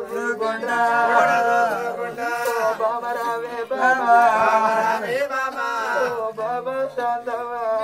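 Oggu Katha folk singing in Telugu: a voice holds long, wavering chanted notes.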